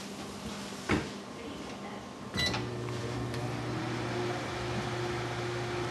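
Sharp built-in microwave oven being started: a click about a second in, then a short beep about two and a half seconds in, after which the oven runs with a steady hum.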